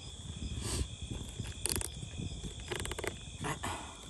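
Crickets chirping in a steady, high trill. A few brief rustling noises up close come from hands working the fish.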